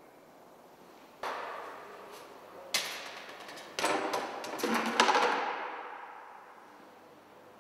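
A light ball knocking onto and rolling down a plywood ramp, with a few separate knocks first and a cluster of knocks and rattling that ends in the loudest thud about five seconds in as it drops into a plastic bucket. The thud rings on in the room's echo before fading.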